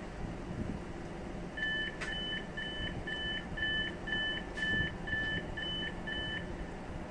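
Door-closing warning of a Hamburg S-Bahn train at a station stop: about ten electronic two-tone beeps, roughly two a second, starting about a second and a half in and stopping near the end, over a low steady hum.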